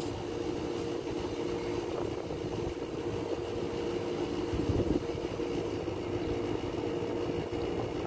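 Toshiba split air conditioner's outdoor unit running steadily, its compressor and fan giving an even hum. The system has just been recharged with R22 to about 55 psi on the suction gauge.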